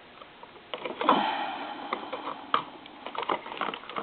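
Scattered light clicks and ticks, irregular and a few at a time, of a small electronic component (an SCR) and its circuit board being handled as the part is fitted back into the board.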